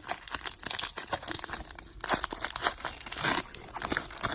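Foil trading-card pack wrapper crinkling and tearing as it is opened by hand, in a quick irregular run of crackles.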